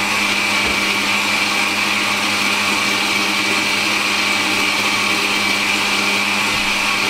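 Countertop blender running steadily at one speed, churning a milky shake in its jug: an even motor hum with a steady high whine on top.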